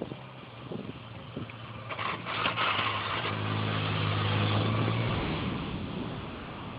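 Yamaha XJ600N motorcycle's inline-four engine running at steady revs as the bike comes closer through a corner, growing louder, then dropping away and fading as it passes.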